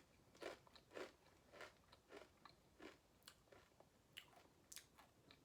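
A person chewing garlic shrimp Doritos tortilla chips, a steady run of faint crunches a little under two a second.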